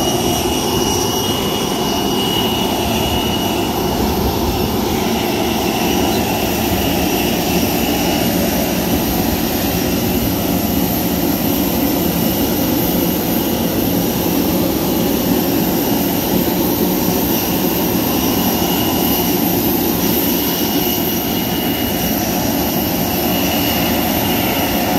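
Steady jet whine over a low rumble from a parked Cebu Pacific Airbus jet airliner on the apron, with thin high whistling tones on top.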